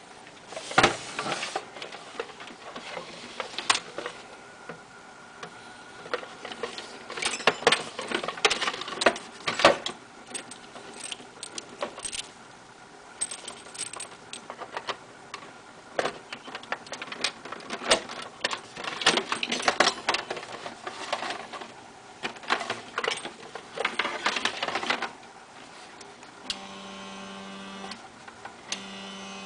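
Irregular clicking and rattling for most of the stretch. Near the end, the drive motor of an automatic magnetic-loop antenna tuner turns the loop's air variable capacitor: a steady electric whine that breaks off briefly once, then starts again.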